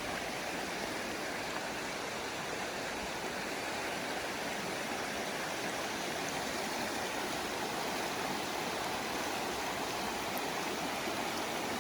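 Creek water running steadily over a shallow crossing, an even rushing sound.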